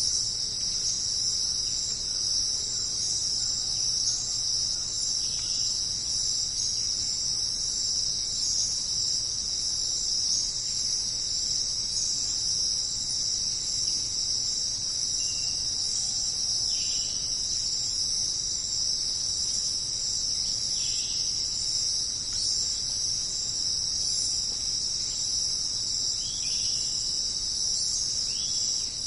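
Dense jungle insect chorus: a loud, unbroken high-pitched trilling drone, with a few faint short calls scattered through it.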